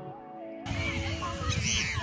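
Soft background music with a gliding melody that cuts off suddenly about two-thirds of a second in. Louder outdoor noise takes over, with low rumbling and a brief high chirp near the end.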